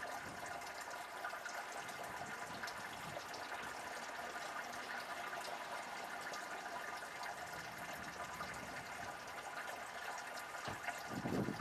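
Heavy rain from a thunderstorm falling steadily, a dense hiss of many small patters. There is a brief low rumble near the end.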